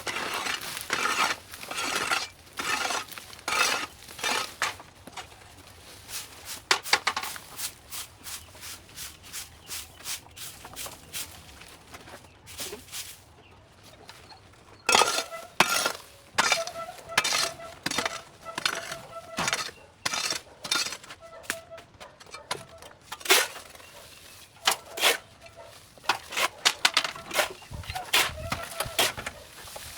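Many quick, irregular knocks and clinks throughout, thinning out in the middle. From about halfway, short pitched notes repeat between them.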